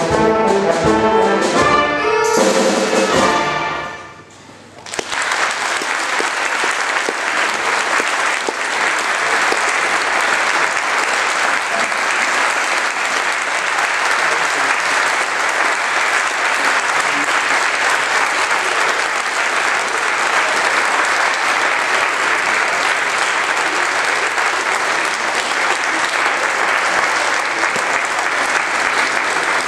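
A wind band with brass plays the closing chords of a piece, the last chord held and cut off about four seconds in. An audience then applauds steadily for the rest.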